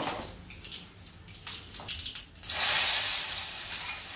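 Hot tempering oil with mustard seeds and chillies poured from a small cast-iron pan into a yogurt-based curry: a few light knocks, then a sudden loud sizzle about two and a half seconds in that slowly dies away.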